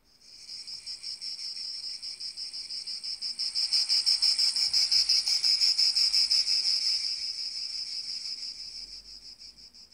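Cicadas singing: a high-pitched, rapidly pulsing buzz that swells through the middle and fades away near the end.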